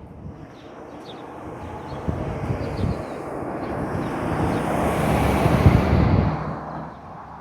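A road vehicle passing by: its noise builds steadily to a peak about five to six seconds in, then fades away.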